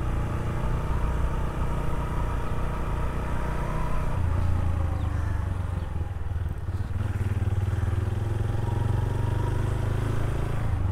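Yamaha 125 motorcycle engine running steadily while riding, its note shifting about four seconds in.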